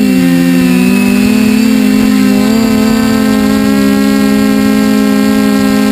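Small multirotor drone's electric motors and propellers whining steadily, heard from the onboard camera; the pitch dips briefly about half a second in and wavers again a couple of seconds later as the motors change speed to steer.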